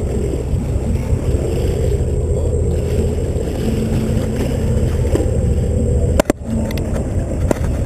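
A boat's engine running steadily with a low drone. A couple of sharp knocks come near the end.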